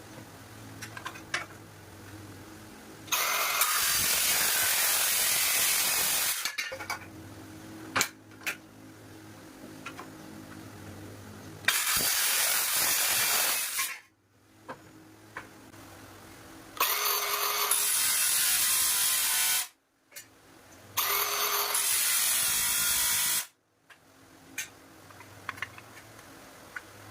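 Circular saw cutting through hollow steel box section in four separate cuts of two to three seconds each, loud and hissing-bright while the blade is in the metal. Between cuts a steady low hum and scattered clicks and knocks.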